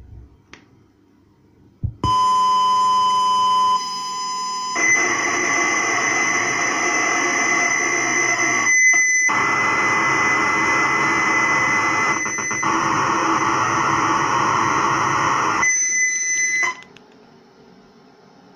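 Computer boot data played off a vinyl record: after a thump, a loud steady tone sounds for about three seconds, then a dense, noisy data signal with a steady high whistle over it runs for about eleven seconds, with a brief dropout near nine seconds, and cuts off abruptly. It is a bootable disk image being loaded into an IBM PC through its cassette interface.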